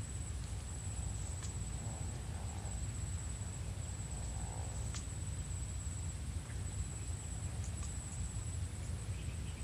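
Steady low rumble of wind on the microphone, with a thin, steady high trill of insects and a few faint clicks.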